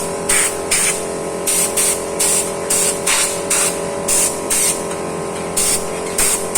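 Background electronic music with a steady, quick beat.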